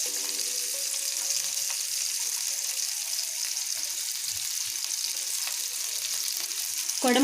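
Sliced onions and green chillies sizzling steadily in hot oil in a pan, a continuous high hiss.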